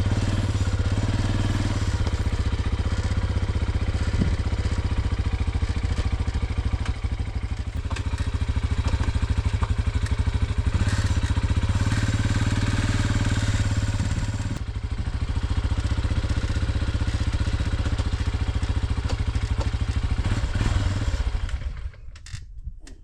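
Vehicle engine running with an even low pulsing, then shut off about a second before the end.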